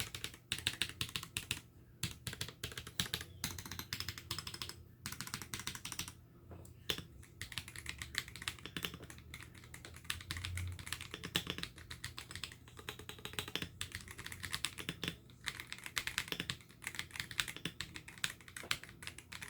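Typing on an Akko 5075B Plus V2 mechanical keyboard fitted with Akko yellow switches: a continuous run of even, uniform keystroke clicks.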